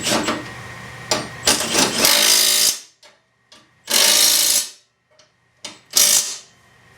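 Impact wrench driving the blade bolts of a Honda GCV170 push mower tight, in three short bursts, the last one the shortest. Clicks and knocks come before the first burst.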